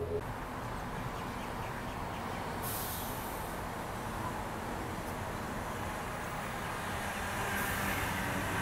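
A Sydney Trains Tangara double-deck electric train approaching and passing: a steady rumble of wheels on rail that grows louder near the end as the cars draw level, with a faint motor whine appearing then.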